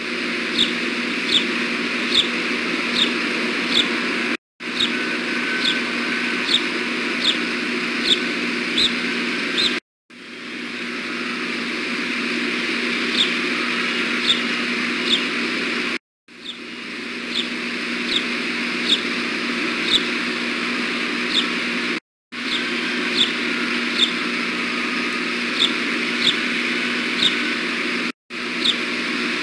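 Osprey giving short, high chirps at a steady pace, a little under two a second, over a steady background of traffic hum. The sound cuts out briefly about every six seconds, as a live stream drops.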